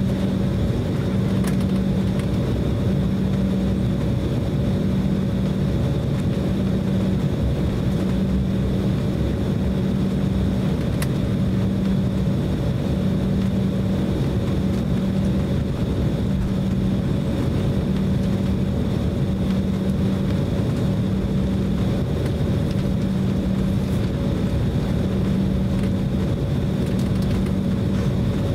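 Cabin noise of an Embraer E190 taxiing: the steady drone of its GE CF34-10E turbofans at taxi power, a low hum that swells gently and regularly, with a faint high whine over it.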